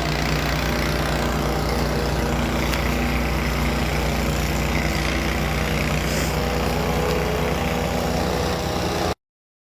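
An engine running steadily at idle, a constant low hum, that cuts off abruptly about nine seconds in.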